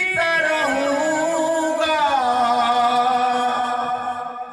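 A man singing a naat, a devotional Urdu poem in praise of the Prophet, in a solo voice; about two seconds in his voice slides down and then holds one long note.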